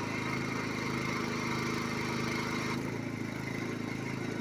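A small engine running steadily. About three seconds in, its note shifts lower and the hiss above it fades.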